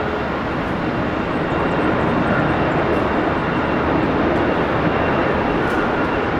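Boeing 717's twin Rolls-Royce BR715 turbofan engines, a steady rushing jet noise with a faint high whine, growing slightly louder about two seconds in.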